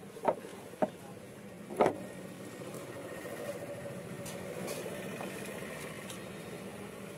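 Hot oil sizzling steadily in an iron kadai as batter-coated stuffed chillies deep-fry into mirchi pakodas, growing a little louder about two seconds in. Three sharp knocks come in the first two seconds.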